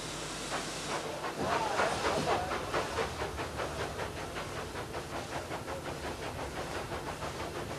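Brienz Rothorn Bahn rack steam locomotive. A steady hiss of steam is followed, from about a second and a half in, by a run of exhaust chuffs at about four a second, strongest at first.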